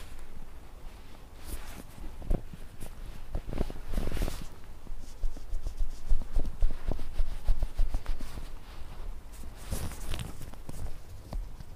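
Close-miked handling of a foam brain model as acupuncture needles are pushed into it: irregular soft taps, clicks and scratchy rubbing of fingers and needles on the foam, in clusters.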